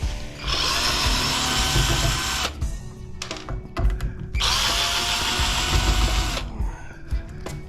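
Power drill/driver run twice, about two seconds each, spinning up and winding down each time, driving screws out of a gas furnace regulator. There are light clicks and clatter of handling between the runs.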